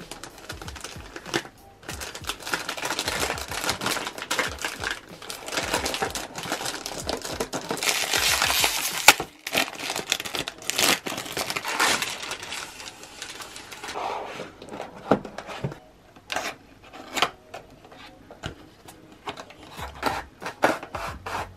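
Foil-lined plastic wrapper crinkling and tearing as it is pulled open by hand, with one sharp crack about nine seconds in. Toward the end, scattered taps and clicks of a thin cardboard box being handled and opened.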